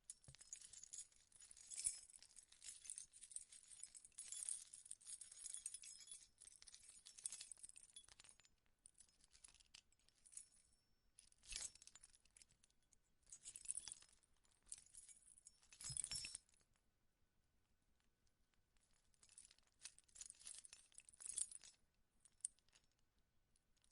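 A bunch of keys jangling and rustling, shaken steadily for the first eight seconds or so, then in several shorter bursts with a pause of about three seconds after the middle.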